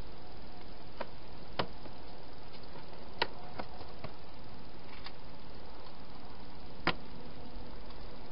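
Wild hedgehog eating at bowls inside a plastic feeding box: scattered sharp clicks and knocks, about seven in all, the loudest about three seconds in and near the end, over a steady hiss.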